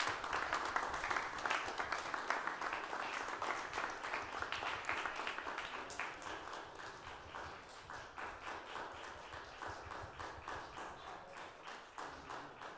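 Audience applauding. The applause is dense at first and thins to more scattered claps over the second half.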